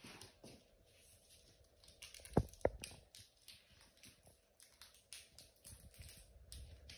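Pomeranian puppy playing with a rope toy and a plush toy on a laminate floor: faint scrabbling and rustling of paws and toys, with two sharp knocks about a quarter second apart about two and a half seconds in.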